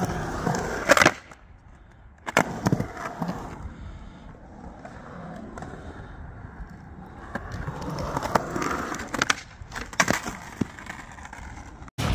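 Skateboard rolling over a concrete bowl, its wheels making a steady rumble. Sharp clacks of the board and trucks come about a second in, again near three seconds, and in a cluster around ten seconds.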